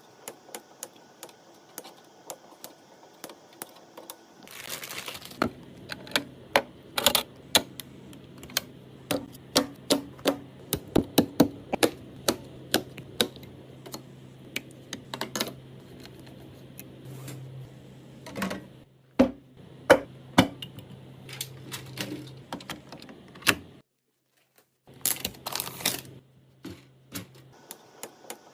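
Irregular sharp clicks and knocks of hard parts being handled and fitted while a computer is assembled, over a steady low hum. The sound drops out to dead silence for about a second shortly before the end.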